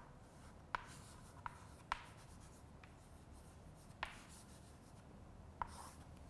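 Chalk writing on a blackboard: faint scratching broken by about five sharp taps of the chalk against the board.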